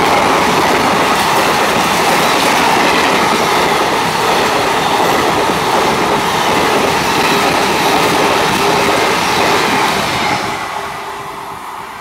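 Express train's passenger coaches passing close at about 110 km/h, a loud rushing rumble of wheels running over the rails. The noise drops away about ten seconds in as the last coach clears and the train recedes.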